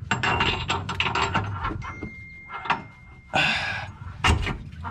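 Metal clanks and knocks of tools and car parts being worked while a subframe bushing is fitted: a quick run of clinks and knocks, a short hiss about three seconds in, and one loud knock near the end.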